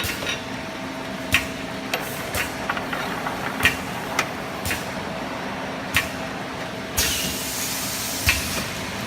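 Automatic perfume bottle filling and crimping machine running on a test cycle: a steady hum under sharp, irregular clicks and knocks of its moving parts, with a hiss starting about seven seconds in. The filler has not yet drawn up perfume, so the bottles are not filling evenly.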